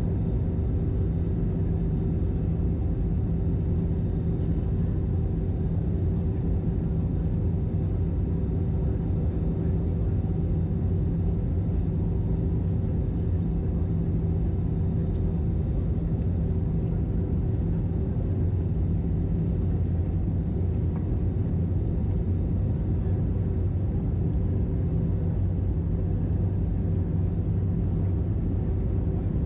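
Steady drone inside the cabin of an Airbus A320 in flight: engine and airflow noise with a few constant hum tones, unchanging throughout.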